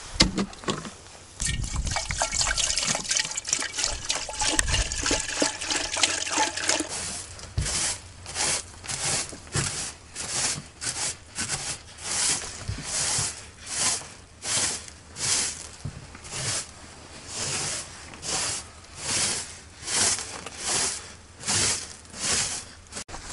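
Water poured from a plastic jug, trickling and splashing over a plate and pot, for the first several seconds. Then a broom sweeping a wooden plank floor in steady, even strokes, about three every two seconds.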